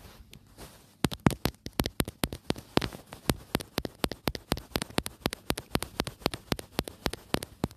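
Fast, irregular close-up tapping and crackling right at a phone's microphone, starting about a second in: an improvised ASMR trigger.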